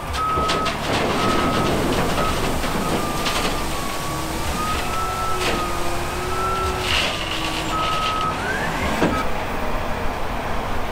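Heavy truck and machinery running with a reversing alarm beeping: short repeated beeps at one pitch, a wavering tone in the middle, and a few sharp air hisses over the low engine rumble.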